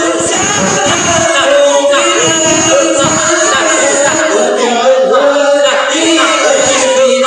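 Many voices of a seated congregation chanting together in an Islamic devotional chant, with long held notes and no break.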